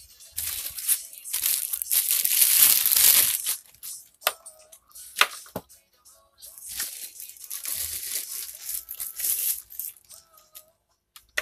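Plastic packaging wrap crinkling and rustling as a speaker is unpacked, in two long stretches, with a few sharp clicks and knocks between them.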